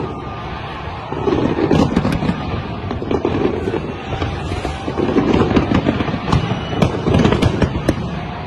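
Fireworks display: many sharp bangs and crackles of bursting aerial shells over a continuous low rumble of explosions.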